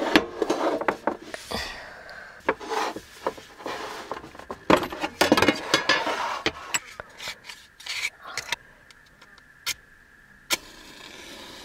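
Rustling with many light clicks and knocks of objects being handled, busiest in the first half, then a few separate sharp clicks toward the end.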